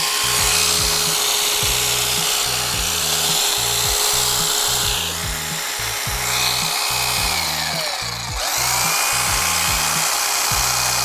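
Corded electric hedge trimmer running as it cuts through a shrub, its whine dipping and coming back up about eight seconds in, under background music with a steady bass beat.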